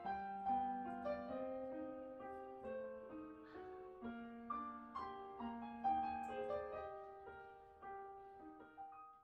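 Background piano music: a melody of single struck notes over lower notes, each dying away after it is played.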